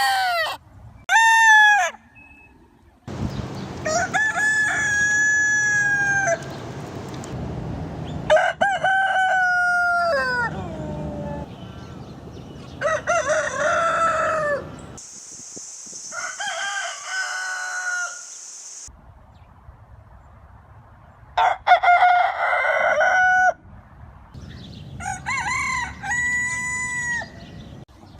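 Roosters crowing: a run of about seven separate cock-a-doodle-doo calls, each one to four seconds long with short pauses between them, over changing background noise.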